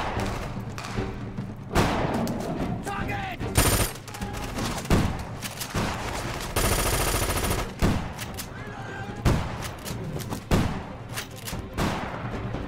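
Film firefight soundtrack: soldiers' automatic weapons firing in repeated bursts and single shots, with one long continuous burst near the middle and shouted voices between the shots.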